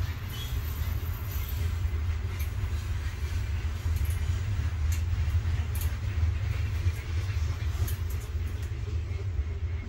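A steady low rumble from an unseen source, with a few faint, short metallic clicks as spring lock washers and nuts are threaded by hand onto the intake manifold studs of a two-stroke snowmobile engine.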